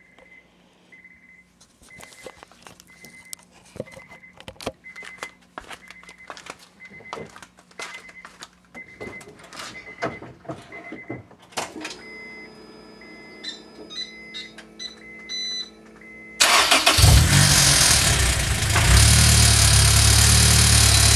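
A car's warning chime beeps about once a second, with scattered clicks and knocks, and then changes to a different chime pattern. About 16 seconds in, the Honda S2000's four-cylinder engine cranks, catches and settles into a steady idle, which is the loudest sound.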